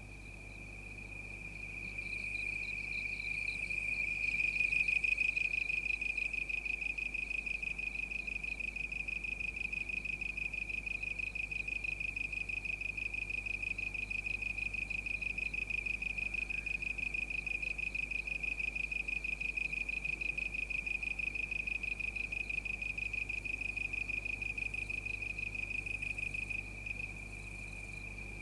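Cricket chirping: a steady, high-pitched, rapidly pulsing trill that swells over the first few seconds and drops in level near the end, over a faint low hum.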